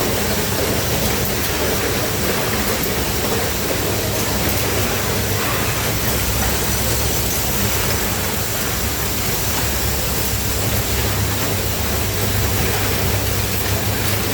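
Automated Rubik's cube assembly line machinery running: a loud, steady mechanical din with faint sharp ticks.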